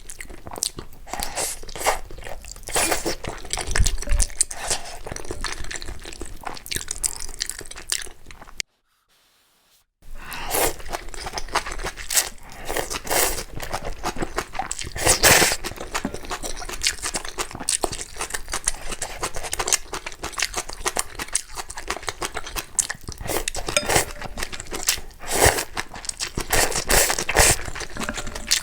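Close-miked eating sounds: a person crunching and chewing food in rapid, irregular bites. About nine seconds in, the sound cuts out completely for just over a second, then the crunching and chewing resume.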